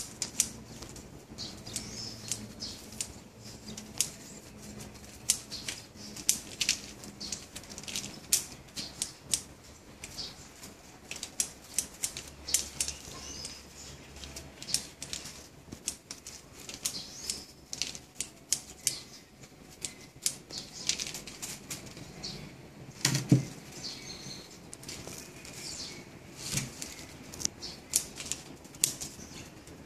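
Bonsai shears snipping twigs and leaves as a tree is pruned: many sharp, irregular snips in quick runs, with one louder knock about two-thirds of the way through.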